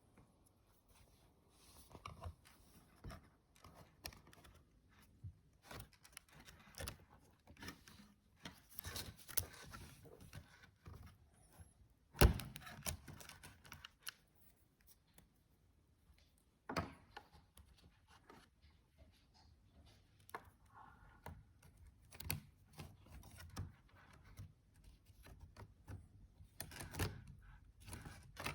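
Irregular small clicks and taps of metal and plastic laptop parts being handled as a replacement hinge is fitted and screwed in, with one sharper knock about twelve seconds in.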